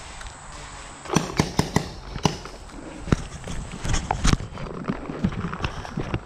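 Footsteps on a dirt path with gear knocking and rattling close to the mic, starting about a second in as a series of sharp, irregular knocks.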